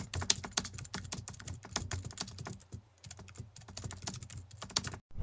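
Keyboard typing: a rapid, uneven run of key clicks, with a short break about three seconds in.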